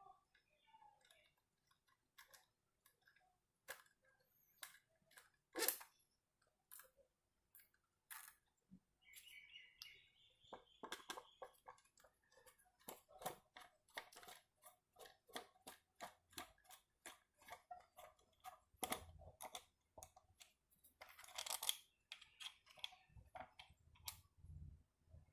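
Faint, irregular clicks and taps of small plastic and metal speedometer parts being handled and fitted, coming thick and fast for several seconds in the middle, with one louder tap near the start.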